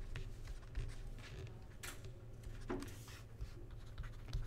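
Stylus tapping and scratching on a tablet screen as words are handwritten: scattered soft taps and two longer scratchy strokes in the middle, over a steady low hum.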